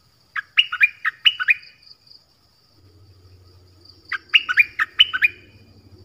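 Stripe-throated bulbul singing two short phrases of quick, sharp, rising notes, one about half a second in and another about four seconds in, each lasting just over a second. A faint steady high tone runs underneath.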